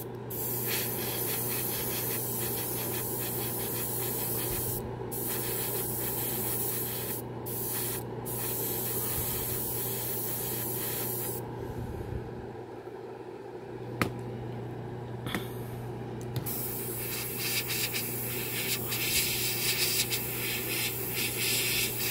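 Airbrush spraying paint in long hissing passes, cut by short pauses as the trigger is let off and a longer pause around the middle. An air compressor hums steadily underneath.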